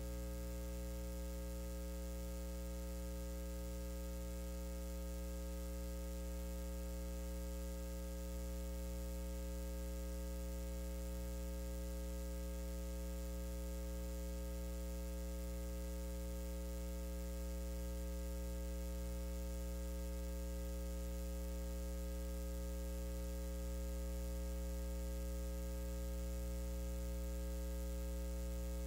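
Steady electrical mains hum with a buzzy edge and a background hiss, unchanging throughout.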